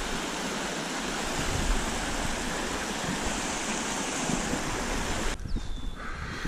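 Running water of a small trout stream, a steady rushing. About five seconds in it cuts off suddenly to a quieter background with a brief falling whistle.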